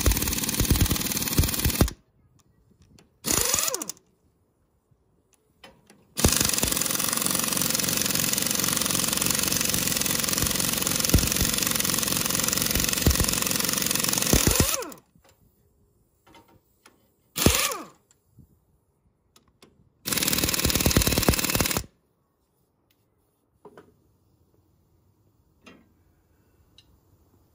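Impact wrench hammering in five bursts as it runs bolts out of the cylinder head of a John Deere 2010 tractor engine. The longest burst, in the middle, lasts about eight seconds. After the last one there are only a few faint clicks.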